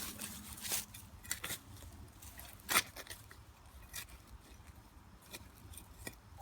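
Scattered light clicks and rustles of movement in the field, with one louder crack a little under three seconds in.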